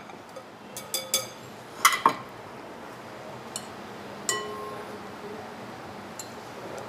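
A wire whisk and glass mixing bowls clinking: a few light taps about a second in, a louder knock around two seconds, and a sharp clink a little after four seconds that leaves a short glassy ring.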